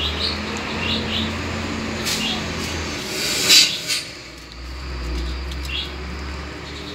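Small birds chirping in short, scattered calls over a low, steady rumble, with a brief rustle of foliage about three and a half seconds in.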